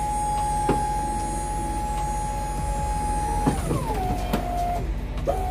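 Tuck-under truck lift gate's electric hydraulic pump motor whining steadily as the gate is raised and folded up into its stowed position, with a couple of metal clunks. About three and a half seconds in the whine drops in pitch. It cuts off near the end, then runs again briefly.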